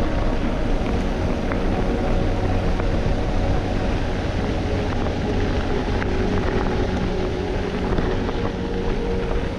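Mountain bike rolling downhill on a gravel road: steady tyre noise on the loose gravel with small scattered knocks from the bike, and wind on the camera microphone.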